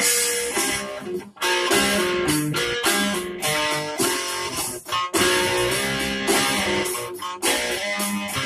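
A guitar played fingerstyle: bass notes and melody plucked together in a steady rhythm, with brief breaks about a second and a half in and again near five seconds.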